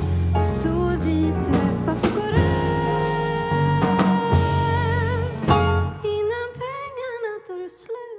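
Live jazz quintet playing with a female singer over piano, upright-style bass, drum kit and trombone. About six seconds in the band drops out, leaving a lone melodic line with vibrato that fades toward the end of the song.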